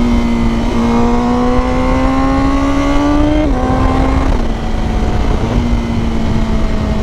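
Honda CBR1000RR-R Fireblade SP's inline-four engine pulling under load while riding: its note climbs steadily, then drops sharply about three and a half seconds in as it shifts up a gear, and runs on steady after a smaller step down.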